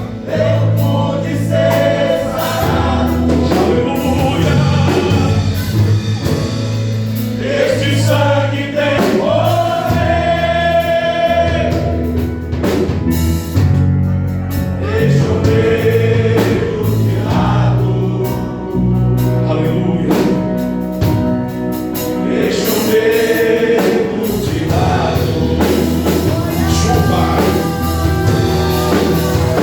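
Men's choir singing a Portuguese-language gospel hymn over instrumental backing with a steady bass line, holding long sung notes.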